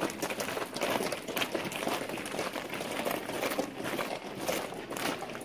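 Many booted footsteps crunching on gravel as a group of soldiers marches off.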